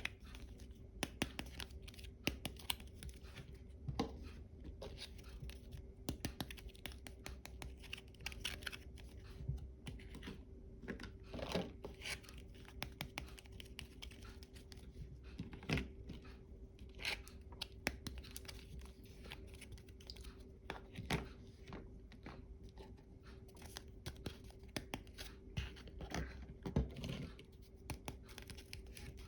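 Small objects and packaging being handled: irregular light clicks, scratches and crinkling, with a sharper click every few seconds, over a faint steady hum.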